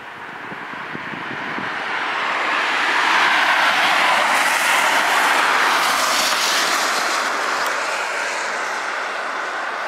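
A car passing along the road: its tyre and engine noise swells to a peak about three to six seconds in, then slowly fades.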